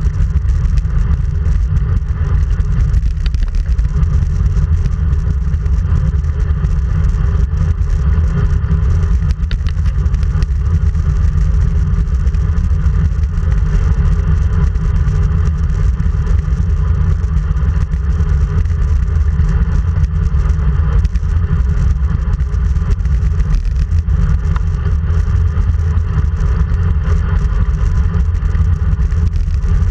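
Wind rushing over a handlebar-mounted GoPro's microphone on a road bike riding at speed: a loud, steady low rumble, with the tyres rolling on asphalt beneath it.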